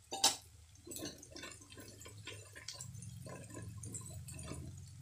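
A steel spoon clinks once against a metal kadhai, then a run of faint ticks and crackles from onion-tomato masala frying with spices in the pan.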